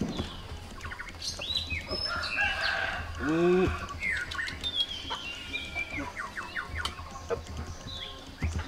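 A chicken calls loudly once, about three seconds in, over small birds chirping on and off throughout.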